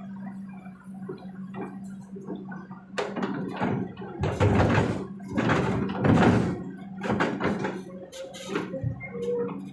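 Kobelco SK200 excavator's diesel engine running with a steady hum while its bucket dumps earth and rock into a dump truck's bed: a run of knocks and heavy thuds, loudest about four and a half and six seconds in.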